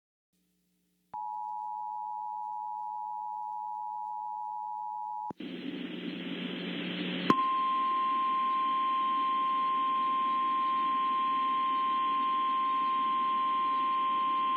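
Emergency Alert System attention signal: two steady tones sounded together for about four seconds. Then radio static comes up, and about seven seconds in the NOAA Weather Radio 1050 Hz warning alarm tone begins, one steady tone held over the hiss.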